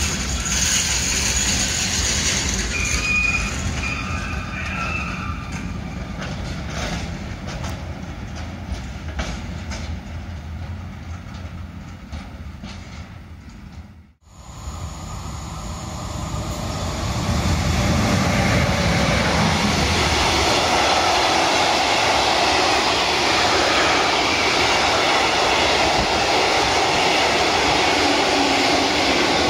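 A freight train of container flat wagons rolling past and fading as it draws away. After a sudden break about halfway, a freight train of tank wagons rolls past close by, the steady loud rumble of its wheels on the rails building up and holding.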